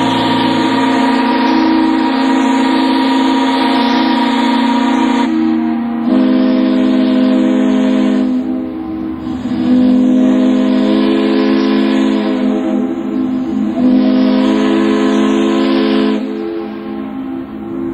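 Several ships' steam whistles sound together in long overlapping blasts of different pitches, a whistle salute to a steamship's final arrival. One whistle stops about five seconds in and another starts a second later. The chorus dips briefly twice, near the middle and near the end.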